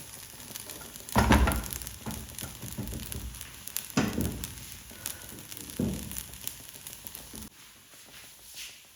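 Rice frying in oil in a non-stick pot, sizzling, while a spoon stirs it, with three louder scrapes or knocks of the spoon against the pot about a second in, at four seconds and near six seconds. The sizzling drops off in the last second or so.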